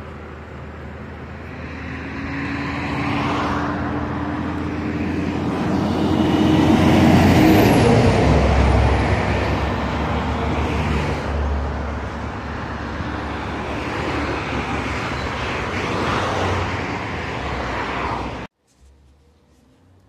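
Road traffic: a motor vehicle driving past close by, rising to its loudest about seven seconds in and then easing off, before cutting off abruptly near the end.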